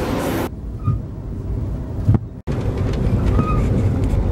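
Steady low rumble of a moving passenger train heard from inside the car. It turns duller about half a second in, has a sharp knock just after two seconds, and cuts to silence for a moment before returning louder.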